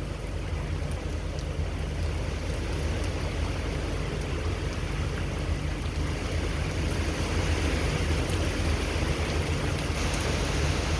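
Steady rush of hurricane wind and heavy rain, with a constant low rumble underneath.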